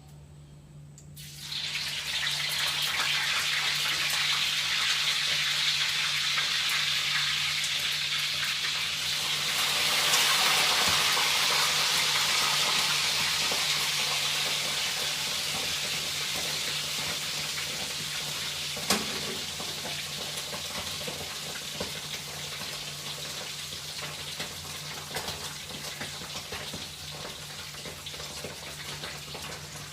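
Food frying in hot oil: a sizzle that starts suddenly, swells, then slowly dies down. A single sharp knock about two-thirds of the way through.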